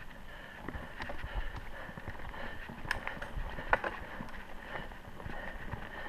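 Mountain bike riding over a dirt singletrack: tyres rolling over dirt, twigs and stones, with the bike rattling in a steady run of clicks and knocks and one sharp knock about three and a half seconds in.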